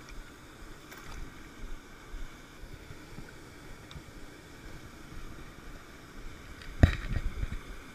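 Steady rush of a mountain stream flowing over rocks. Near the end a single sharp knock, followed by a few softer bumps.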